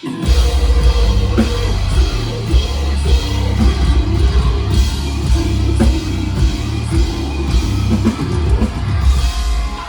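Metalcore band playing live at full volume: heavy drums and a dense, pounding low end. The band crashes back in at the start after a brief stop, and the sound eases off near the end.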